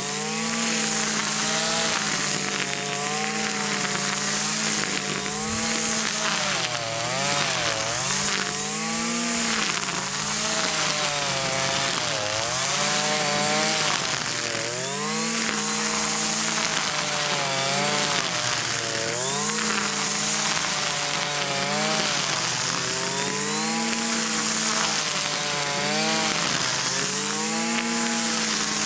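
Gas string trimmer's small engine running at high speed. Its pitch dips and recovers about every two seconds as the spinning line cuts into dry grass.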